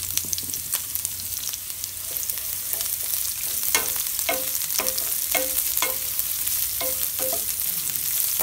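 Sliced onions sizzling in hot sesame oil in a non-stick kadai while being stirred with a wooden spatula. From a little before halfway, about eight quick knocks and scrapes of the spatula against the pan.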